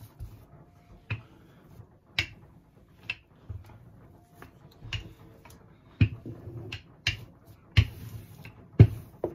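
Wooden rolling pin rolling out bread dough on a countertop, with a sharp knock about once a second as it goes back and forth. The knocks are loudest near the end.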